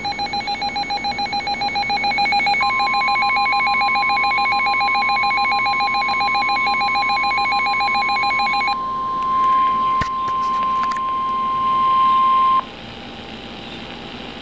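NOAA Weather Radio's 1050 Hz warning alarm tone, one steady high tone that starts about two and a half seconds in, holds for about ten seconds and cuts off suddenly. Under it, rapidly pulsing electronic alert beeps stop about nine seconds in. A few clicks come about ten seconds in, and radio hiss is left after the tone.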